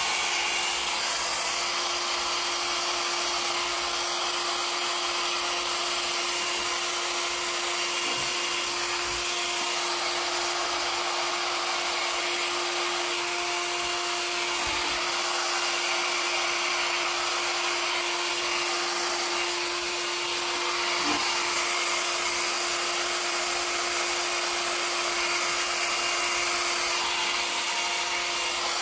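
Handheld hair dryer running steadily, a constant motor hum under the rush of air, blowing wet acrylic pour paint across a canvas.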